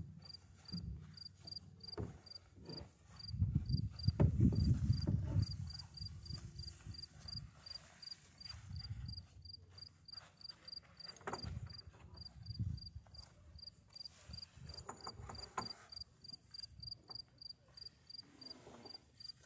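A cricket chirping steadily, about three short high chirps a second. A low rumble of wind on the microphone about four seconds in is the loudest sound, and there are a few soft knocks later on.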